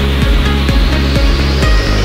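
Background music: a steady kick drum about twice a second over a bass line, with a rising whoosh building up.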